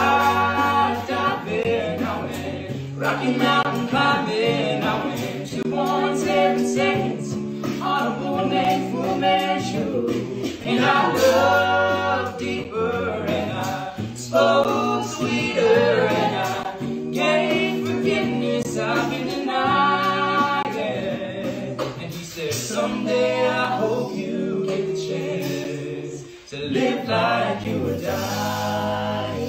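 Mixed-voice a cappella group singing in close harmony, voices only, over a sung bass line that moves in steps from note to note.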